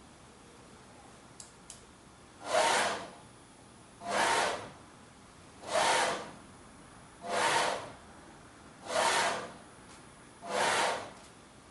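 Motorized target carriage of a WMT-1 accommodation test unit driving along its rail, six short moves about a second and a half apart, each about half a second of swelling and fading mechanical whirr. The target is being stepped back and forth between two distances in a square-wave accommodation test.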